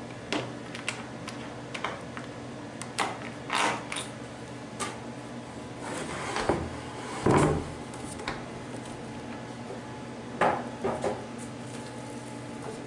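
Scattered knocks, clicks and a few scrapes of things being handled, with one heavier thud about halfway through, over a steady electrical hum.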